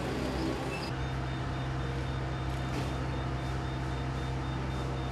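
Armored police vehicle's engine running with a steady low hum. The sound changes abruptly about a second in.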